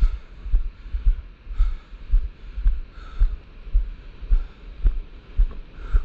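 Footsteps walking on sand, heard as low thuds a little under twice a second through a body-worn camera.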